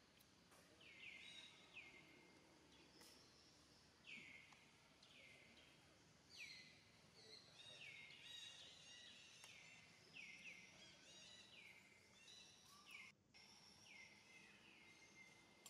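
Faint birdsong over quiet forest background: a run of short whistled notes, each sliding downward, repeated about once a second and overlapping in places.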